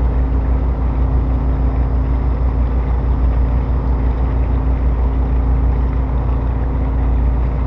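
Boat engine running steadily, a loud, even low rumble with a faint hum of steady tones, heard from aboard the boat.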